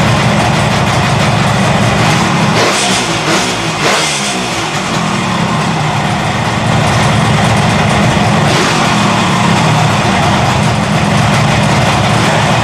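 1972 Kawasaki S2 350's three-cylinder two-stroke engine running at a fast idle of around 1,500 to 2,000 rpm. The revs dip about three seconds in and pick up again. It is running fine again after its carburettors were cleaned and blown out.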